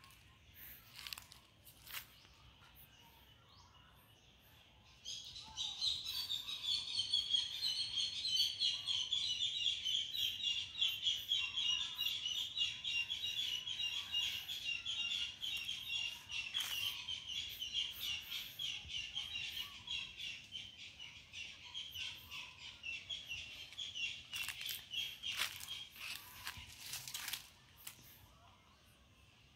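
A high, very fast pulsing trill from a forest animal that starts abruptly a few seconds in, runs for about twenty seconds and fades out near the end. Short crackles of steps and brushing through dry leaf litter come before and after it.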